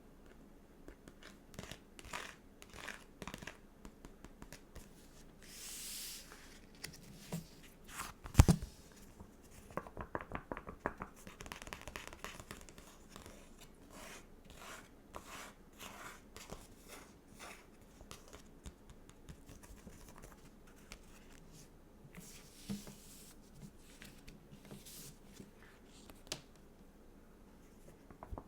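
Stickers and a sticker book being handled: paper peeling and crinkling with many small taps and clicks, and one sharp tap about eight seconds in.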